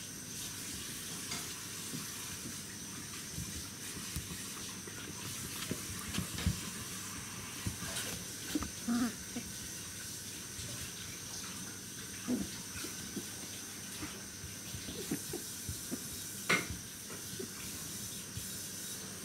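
Pembroke Welsh corgi puppies play-wrestling on a wooden floor: scattered scuffles and claw clicks and a few short puppy noises over a steady hiss.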